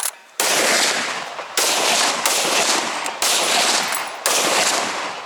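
Five centrefire rifle shots in quick succession, a second or so apart, each with a long echoing tail that runs into the next.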